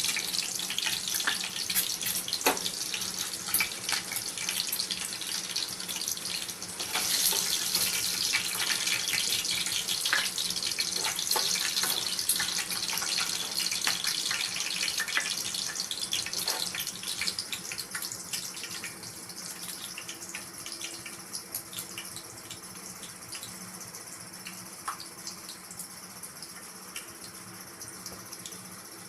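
Boiled eggs frying in hot oil in a pan: a steady sizzle with crackling spatters, dying down gradually from a little past halfway.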